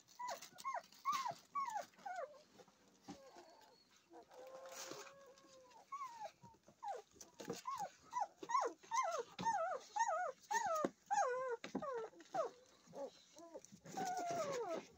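German Shepherd puppies about two weeks old squealing and whining in short, high cries that rise and fall in pitch, two or three a second, with a brief lull about three seconds in and a longer, falling whine near the end.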